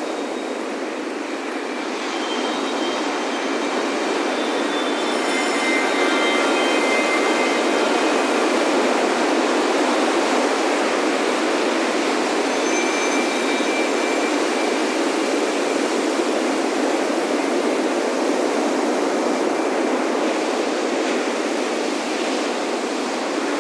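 Steady rush of ocean waves breaking on a beach, swelling a couple of seconds in, with wind chimes ringing here and there in short, high tones.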